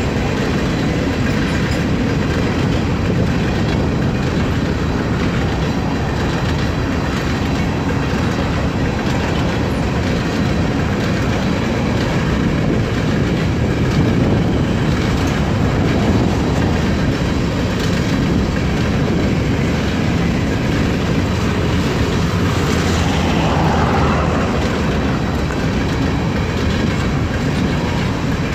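Loaded covered hopper cars of a freight train rolling past, a steady rumble with the clickety-clack of steel wheels over rail joints. A brief higher-pitched wheel squeal rises about three-quarters of the way through.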